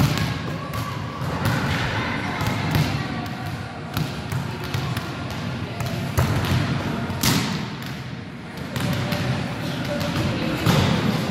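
Volleyballs being struck and bouncing on a sports-hall floor: a run of sharp thuds echoing in the large hall, the loudest about seven seconds in.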